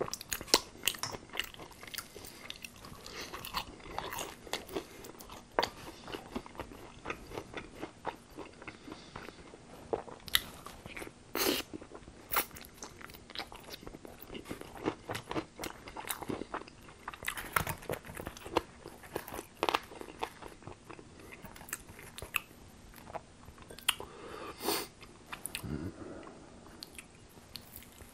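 Close-miked eating of tempura-battered fried chicken wings: crisp crunching bites and wet chewing, with sharp crackles of the batter coming at irregular moments.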